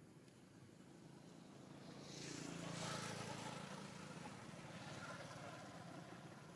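Faint engine noise of a passing motor vehicle, swelling about two seconds in and easing off slowly.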